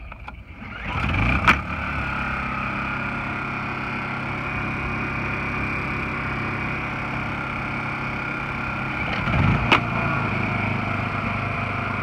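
Honda EU1000i inverter generator pull-started, its small single-cylinder four-stroke engine catching about a second in and then running steadily. Near the end a second generator, a Honda EU2000i, is pull-started and catches, and the two run together; a sharp click comes with each start.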